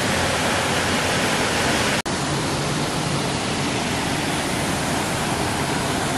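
Steady rushing of a waterfall pouring into a mountain pool, with a brief dropout about two seconds in.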